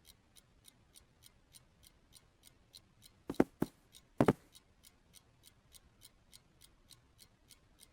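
Quiet, even ticking of a clock, about three ticks a second, with two short pairs of soft knocks a few seconds in.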